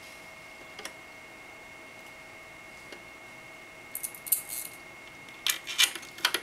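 Small metal parts clicking and clinking as a CPU cooler's backplate and mounting bolts are fitted behind a motherboard. There are two short bursts of light clinks, about four seconds in and again near the end, over a faint steady high whine.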